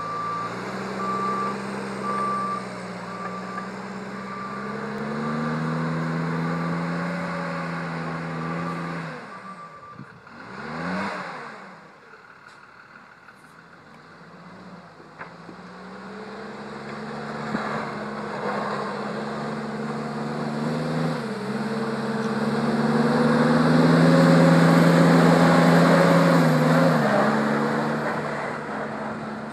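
Military backhoe loader's diesel engine working as it pushes snow, its pitch rising and falling with the throttle, while a reversing alarm beeps steadily for the first nine seconds or so. The engine fades for a few seconds around the middle, then grows loud as the machine drives close by, loudest near the end.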